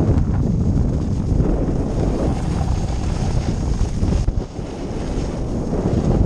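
Wind buffeting a GoPro microphone as a snowboarder rides fast downhill, with the board scraping over packed snow. The rush eases briefly about four and a half seconds in.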